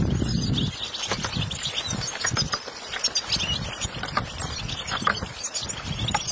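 A flock of European goldfinches chirping and twittering, many short calls overlapping, as they are shaken out of wooden crates, with scattered light knocks from the crates being handled.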